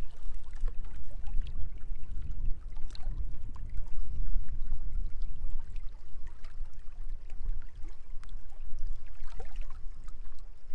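Wind buffeting the microphone in an irregular low rumble, over small lake waves lapping against the rocky shore.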